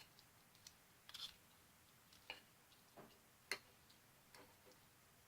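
Near silence broken by about seven faint, irregular clicks: small mouth and chewing noises of someone eating.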